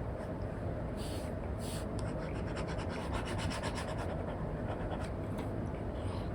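Apple Pencil tip scratching across an iPad's paper-like screen film: two longer strokes, then a quick run of short hatching strokes, over a steady low background noise.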